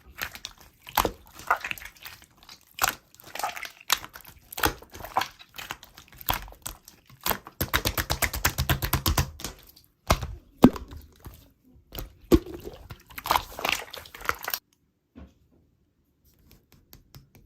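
Slime being squeezed and pressed by hand, making irregular sticky clicks and pops, with a dense run of fast crackling clicks about halfway through. It stops about three seconds before the end.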